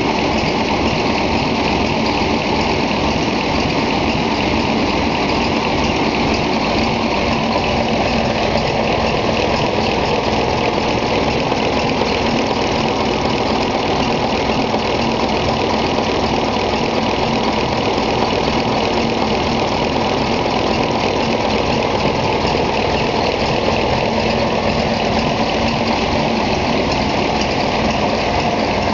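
Freshly overhauled Gardner 5LW five-cylinder diesel engine in a small shunting locomotive, running steadily at an even speed with a low, regular beat.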